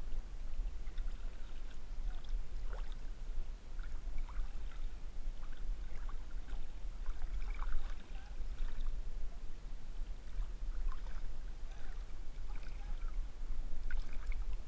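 River water lapping and splashing close to the microphone at the surface as a swimmer moves through it, with many small scattered plops and drips over a steady low rumble.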